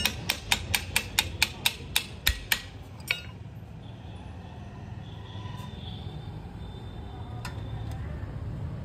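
A quick run of sharp metallic taps, about four a second, a dozen or so in the first two and a half seconds with one more just after, over a steady low background rumble.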